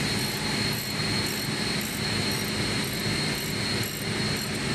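Steady drone of running industrial plant machinery, with a constant high whine over a low hum and a light regular ticking about twice a second.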